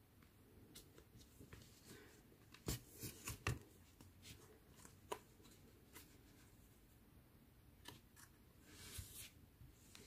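Faint handling noises of hand-sewing a crocheted amigurumi: soft rustles and small clicks as a yarn needle is worked through the crocheted ear and head and the wool is pulled through. A quick run of clicks comes about three seconds in, one more about two seconds later, and a brief rustle near the end.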